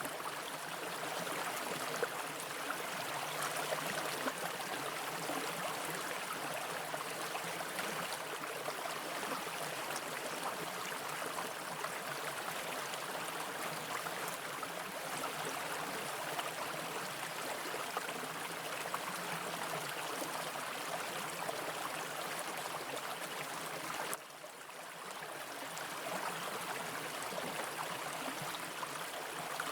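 Mountain brook water rushing and splashing over rocks in a steady, dense wash. It drops briefly about 24 seconds in, then comes back.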